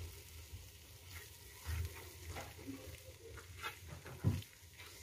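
A spatula stirring egg pieces through thick curry gravy in a pan, with scattered scrapes against the pan and faint sizzling from the simmering gravy. One scrape, a little after four seconds, is louder than the rest.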